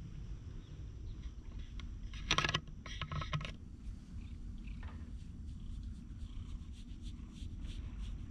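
Steady low rumble of wind and handling on an action-camera microphone. About two and a half seconds in it is broken by two short, loud pitched sounds close together.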